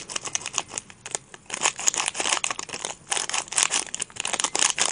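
Plastic supplement sachet crinkling with rapid, irregular crackles as it is handled and torn open by hand.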